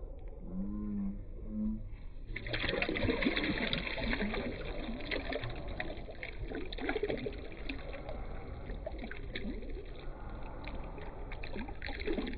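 Water splashing and trickling in many small irregular splashes, starting about two seconds in over a low steady rumble.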